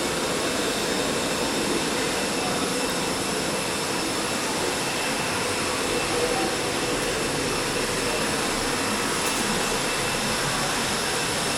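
A steady mechanical drone with faint steady whine tones running through it, even and unchanging.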